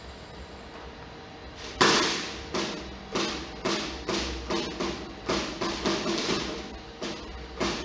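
Hand-made foley props struck or shaken in a series of about a dozen sharp, irregular strokes, each dying away quickly, starting about two seconds in; the first stroke is the loudest.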